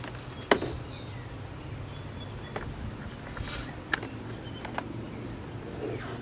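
A few sharp plastic clicks and knocks from door wiring connectors being plugged back in and handled. The loudest comes about half a second in, with lighter ones spread through the rest, over a low steady hum.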